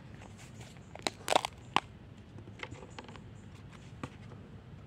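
Light handling noise: a few sharp clicks and knocks of things being moved about, the loudest cluster about a second in, then a few fainter ticks.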